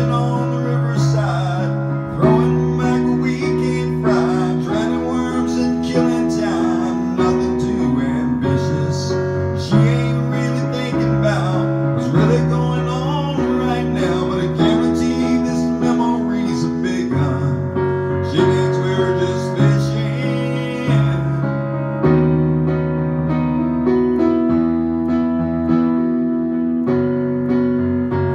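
Digital stage piano playing a slow ballad accompaniment in sustained chords that change about every two seconds, with a man's wordless vocalizing over it.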